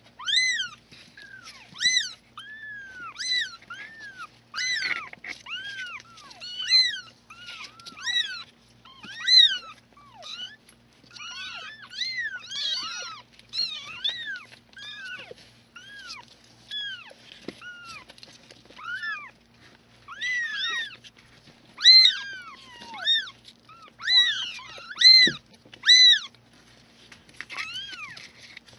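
Kittens about three weeks old mewing: a steady stream of high, thin cries, each rising then falling in pitch, often overlapping as several kittens call at once.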